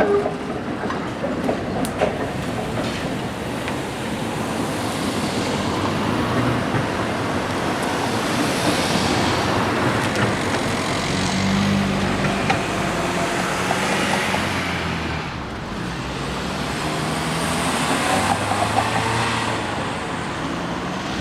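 A streetcar running past on street track amid road traffic, the sound swelling in the middle and again near the end.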